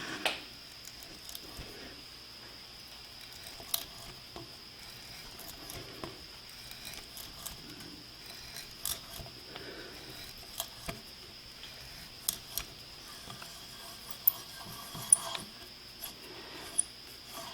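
Quiet shop work by hand: a dozen or so light, sharp clicks and taps at irregular intervals, over a faint steady high-pitched whine.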